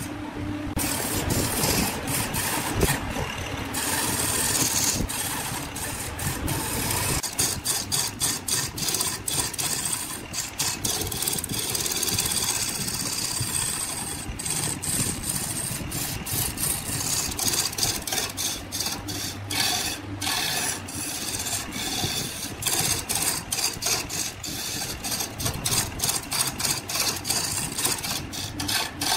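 Wood lathe running while a hand-held turning chisel cuts into a large spinning wooden cylinder: a rough, continuous scraping hiss of the cut over the lathe motor's hum, wavering in loudness with many brief breaks as the tool works along the surface.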